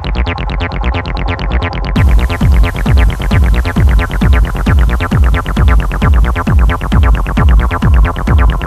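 Techno track: a steady four-on-the-floor kick drum under a fast repeating synth pattern. About two seconds in, bright high end opens up and the music gets louder.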